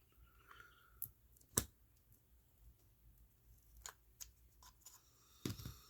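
Small sharp clicks and taps of metal watch parts and tools being handled while a watch movement is fitted into its case. The loudest comes about one and a half seconds in, with a quick cluster near the end.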